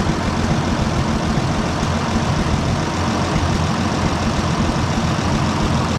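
Farm tractor engine running steadily at a constant speed.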